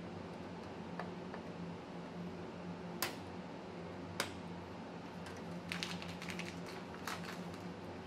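Sharp clicks of hands handling parts and cables inside an open desktop PC: two distinct clicks about a second apart, then a quick run of lighter clicks.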